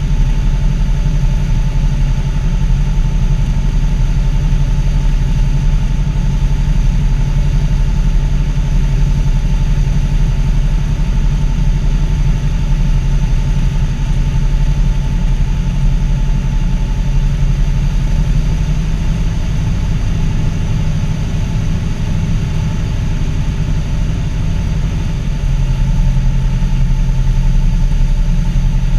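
Cessna 172P's four-cylinder Lycoming O-320 engine and propeller running steadily on final approach to landing, heard from inside the cabin. The sound eases a little about two-thirds through and picks up again near the end.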